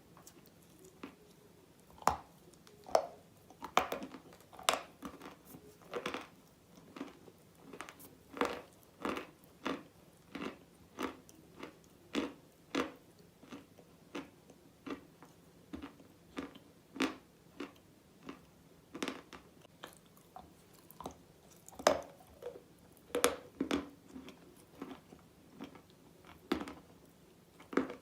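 Close-up crunches of a person biting and chewing a soaked mineral bar (chalk or slate) coated in red clay paste. Sharp crunches start about two seconds in and come one or two a second, with a few louder bites among them.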